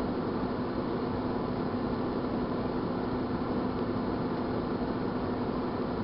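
1978 GE microwave oven running: a steady hum with one held low tone over even fan noise.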